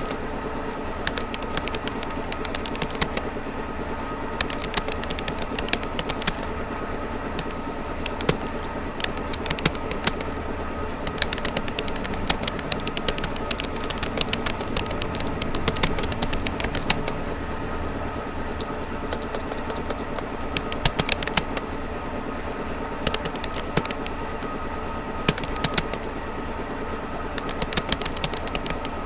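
Keys of a Rapoo computer keyboard clicking in irregular bursts during steady touch typing, over a constant background hum.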